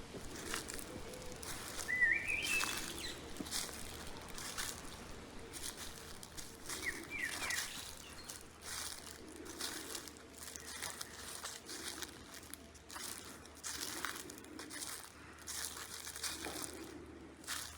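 Footsteps crunching through dry fallen leaves at a steady walking pace. A bird gives short rising chirps about two seconds in and a few more around seven seconds.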